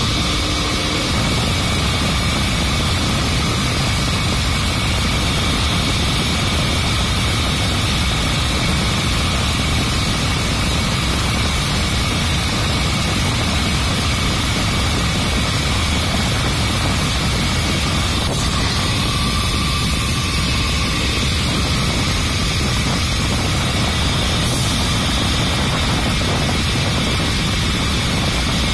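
Copper tube in-line cutting machine running in production: a steady, loud machine noise with a constant high whine, as the tube is fed through and the saw carriage works along its rack.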